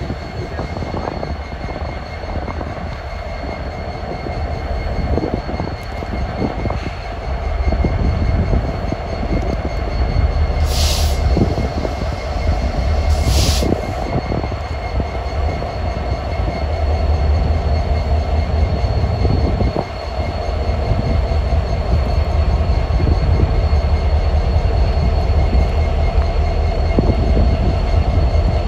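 Kansas City Southern freight train passing: its diesel-electric locomotives rumble by, then the tank cars follow, with a steady whine over the rumble. Two short hisses come about 11 and 13 seconds in.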